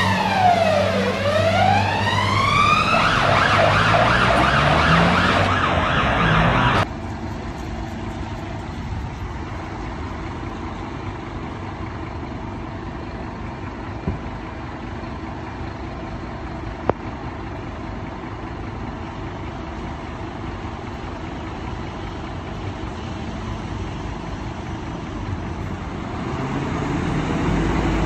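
Fire engine siren wailing with one slow fall and rise in pitch, then switching to a faster warble that cuts off suddenly about seven seconds in. After that a fire service truck's diesel engine hums steadily at idle and grows louder near the end as the truck pulls away.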